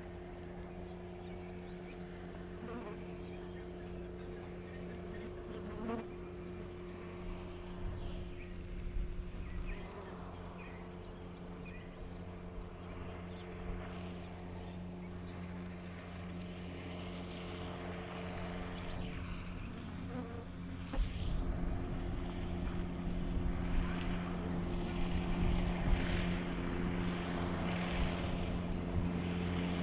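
A steady, unchanging mechanical hum with a few faint knocks over it. It grows louder about two-thirds of the way in.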